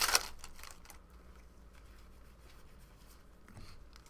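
Trading cards being handled and flipped through: a short burst of card rustles and clicks at the very start, then faint scattered ticks of cards.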